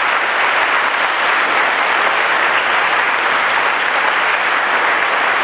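Crowd applauding steadily, a dense, even clapping of many hands.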